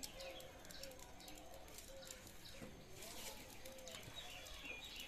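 Faint bird calls: short low coos repeated every second or so, with a few light clicks.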